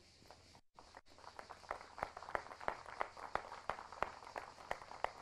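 Scattered applause from an audience: sharp, irregular claps, several a second, beginning about a second in.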